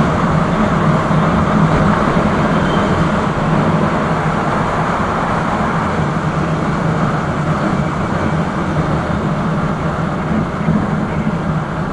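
A motorcycle riding at a steady speed: the engine hums steadily under a loud, even rush of wind on the microphone.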